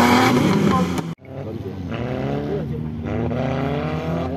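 Off-road competition buggy's engine revving hard as it drives through the dirt course. About a second in, the sound cuts off abruptly, then quieter engine revving rising and falling continues.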